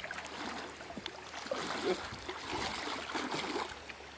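Water sloshing and splashing, an irregular wash of small splashes and trickles.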